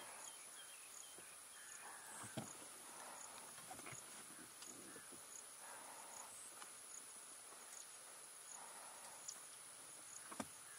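Faint outdoor ambience of insects: a steady high drone with a short, high chirp repeating about once a second. A couple of soft knocks come about two seconds in and near the end.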